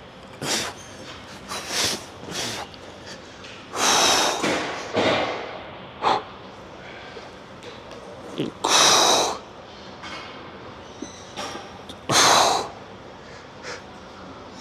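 A man's forceful breaths during a set of skull crushers: short, hard exhalations at irregular intervals, the loudest about 4, 9 and 12 seconds in.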